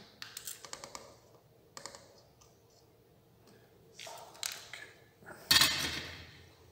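Small sharp clicks and rattles of hands handling wires and small parts on a wooden wiring board, in a quick run at the start, then rustling and a louder knock about five and a half seconds in.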